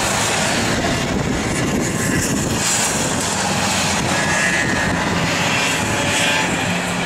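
Racing snowmobile engines running hard as the sleds lap the course, a steady engine drone with faint rising and falling whines.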